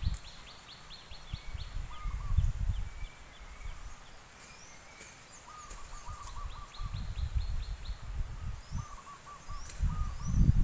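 Several birds calling: one gives rapid runs of high chirps, another a short call repeated near and after the middle. Under them, gusts of wind rumble on the microphone and are loudest near the end.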